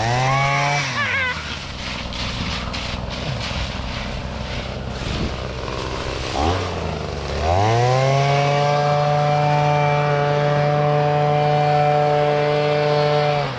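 Small gasoline engine revving up and falling back, running lower and rougher for a few seconds, then climbing to a steady high speed held until it cuts off at the end.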